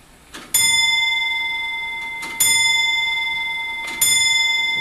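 Longcase (grandfather) clock striking the hour: three strikes on the same note about 1.7 seconds apart, each ringing out and slowly fading, the first about half a second in.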